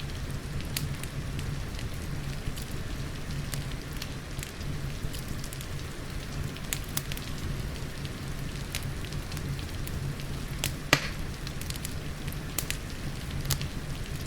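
Wood fire crackling with scattered sharp pops, one louder pop about three-quarters of the way through, over a steady hiss of rain.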